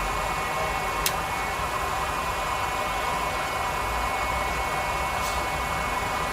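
1989 Kasuga NV2U2 milling machine running: a steady mechanical hum with several constant whining tones, and a single sharp click about a second in.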